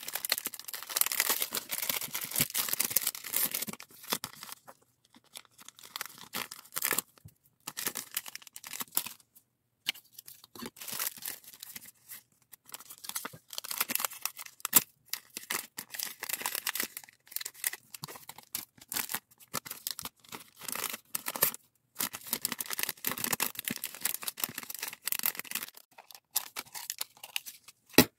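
Clear plastic packaging bags crinkling and rustling as they are handled and folded, in bursts with short pauses in between.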